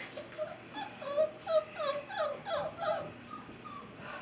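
Alaskan Noble Companion Dog puppies crying: a quick run of about ten short, high-pitched cries that bend down in pitch, then trailing off in the last second.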